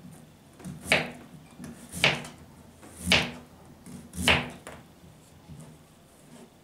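A knife slicing through a peeled white vegetable and meeting a plastic cutting board, four slow, even strokes about a second apart.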